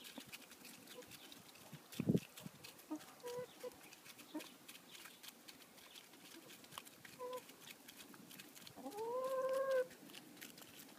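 Brown hens pecking grain from a hand, making a patter of light pecking clicks. There are a few short clucks, a dull thump about two seconds in, and one longer, drawn-out hen call near the end that rises and then holds its pitch.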